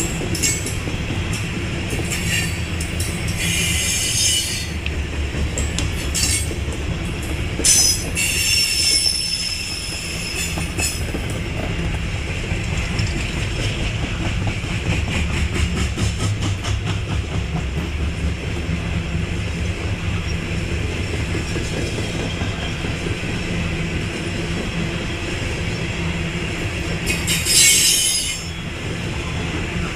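CSX freight train of open hopper cars rolling past: a steady low rumble with rapid clicking of wheels over the rail joints. High-pitched wheel squeal comes in short spells, about three seconds in, around eight seconds in and again near the end.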